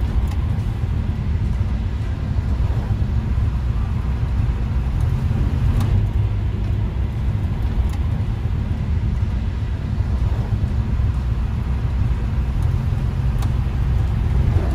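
Steady low rumble of a moving car's engine and tyres heard from inside the cabin, with a few faint clicks.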